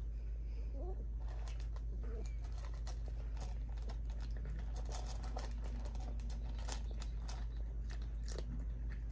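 A cat chewing dry kibble: irregular crisp crunches and clicks as it bites and chews, over a steady low hum.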